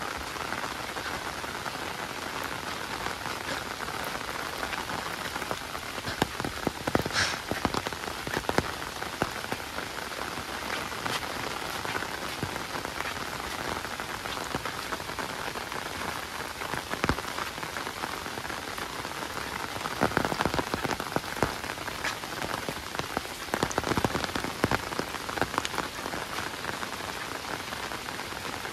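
Rain falling steadily on hard surfaces, with many sharp drop hits close by. The hits come thicker and louder in spells, about a quarter of the way in and again about two-thirds through.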